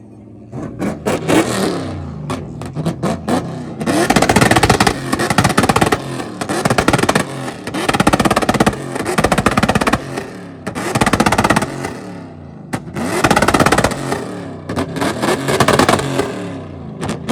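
Truck engine revving hard in repeated surges during a burnout, with dense tyre and exhaust noise and sharp pops throughout.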